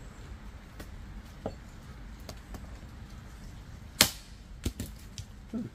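Axe being handled in a wooden chopping block: scattered light clicks and taps, then one sharp, loud wooden knock about four seconds in, followed by a few fainter taps.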